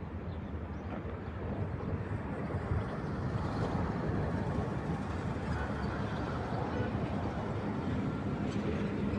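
Ore train led by a TCDD E68000 locomotive approaching, a low rumble growing slowly louder.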